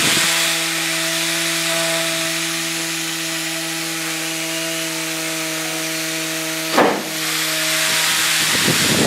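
Small electric fan running: a steady motor hum with airy hiss, broken by one short knock about seven seconds in.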